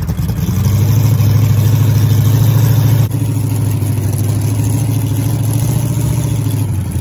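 Monster truck ride truck's engine running as the truck drives, its note rising and getting louder about half a second in, then changing abruptly about three seconds in before running steadily.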